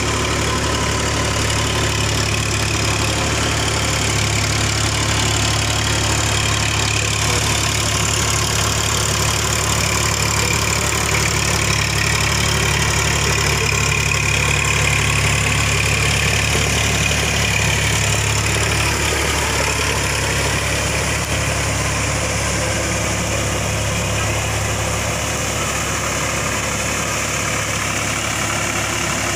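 Farm tractor's diesel engine running steadily as it drives a rotary tiller through wet paddy mud.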